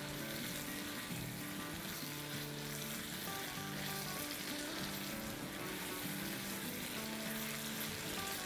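Ridge gourd and tomato masala sizzling steadily in hot oil in a wok while being stirred with a silicone spatula, at the frying (bhuna) stage. Soft background music with held notes plays underneath.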